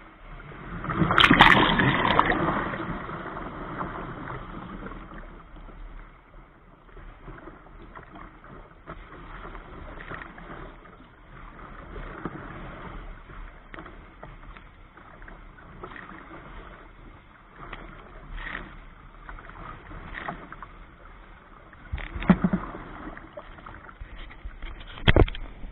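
Waves and surf splashing around a sea kayak's bow in choppy water, with a loud rush of water about a second in that fades over the next couple of seconds. Several sharp knocks come near the end.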